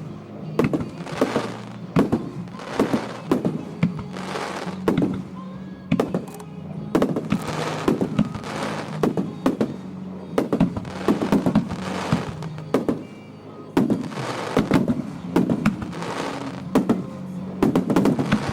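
Aerial firework shells bursting in a rapid barrage: sharp bangs several times a second, each followed by a crackling that trails off, with a steady low hum underneath.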